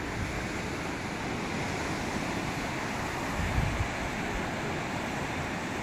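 Steady wash of surf breaking on a sandy beach below a cliff, mixed with wind buffeting the microphone, which swells briefly about halfway through.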